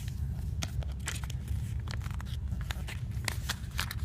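Sheet of paper being folded and creased by hand: scattered crinkles and short sharp clicks of the paper, over a steady low hum.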